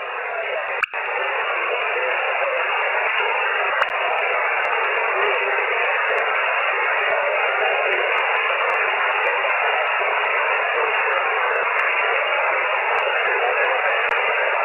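Amateur radio receiver on single sideband hissing with steady band noise, no station readable; a sharp click about a second in.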